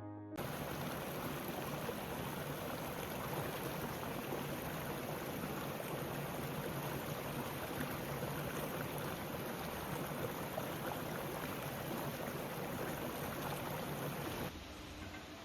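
River water rushing steadily, an even, constant wash of sound. About a second before the end it cuts abruptly to a quieter, duller ambience.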